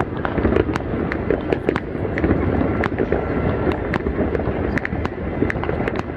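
Fireworks popping and crackling, sharp irregular cracks several times a second over a dense, continuous din.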